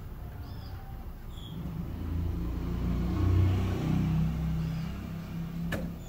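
A motor vehicle passing, its low engine rumble swelling to a peak midway and then fading away. There is a single sharp click near the end.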